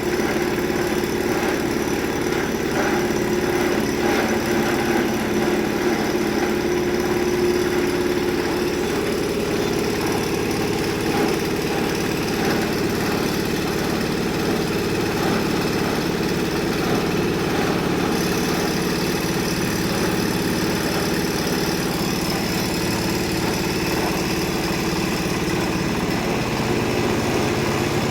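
Engine-driven multi-function chopper-grinder machine (type 30/R2) running steadily at a constant speed.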